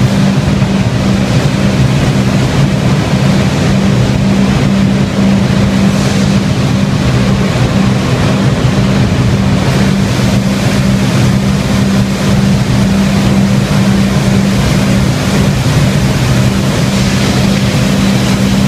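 Industrial vacuum conveying system for beef feet running: a loud, steady machine drone with a constant low hum.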